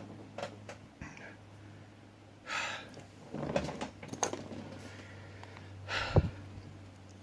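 Scattered small clicks and taps of metal lock parts being handled, over a steady low electrical hum, with two short breathy exhales about two and a half and six seconds in.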